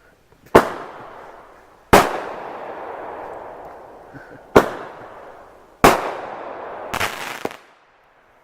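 Fireworks going off: a series of loud, sharp bangs, about a second in, at two seconds, and twice more between four and a half and six seconds. A quick cluster of pops comes near the end. Each bang is followed by a fading, hissing tail.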